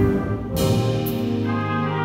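Concert wind band playing, its brass section of trumpets, trombones and horns holding full sustained chords. About half a second in, the band moves onto a new chord with a bright attack.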